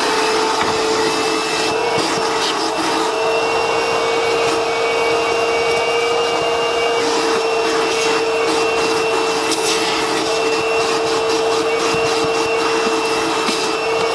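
Vacuum cleaner running steadily, a constant motor whine over a hiss of rushing air, with scattered short clicks and rattles.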